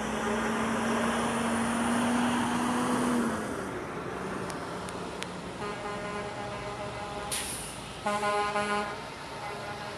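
A semi-truck air horn sounds one steady note for about three seconds and cuts off, over the noise of passing race-team haulers. Further horn blasts follow, the loudest just after eight seconds, with a short hiss of air shortly before it.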